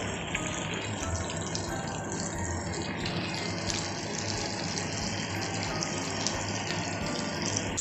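Oil sizzling steadily around a flour-coated pomfret shallow-frying in a pan, with its second side cooking.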